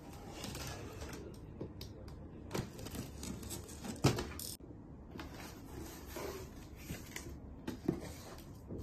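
Packing tape on a cardboard box being slit and scraped open, then the cardboard flaps being pulled back and handled, with rustling and a few sharp knocks; the loudest knock comes about four seconds in.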